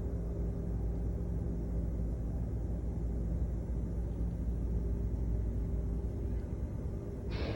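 Steady low machinery drone with a constant hum tone. Near the end a sudden, loud hiss cuts in over it.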